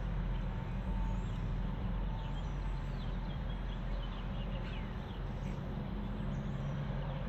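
Steady low hum and rumble, with a few faint, short high bird chirps in the middle.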